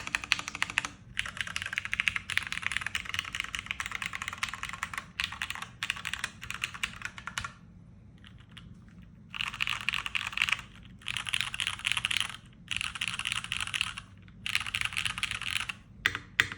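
Fast typing on a UTD 360C mechanical keyboard with tactile Cherry MX Brown switches: rapid runs of key clicks and clacks in bursts of a second or two, with a pause of about two seconds near the middle and a few single keystrokes near the end.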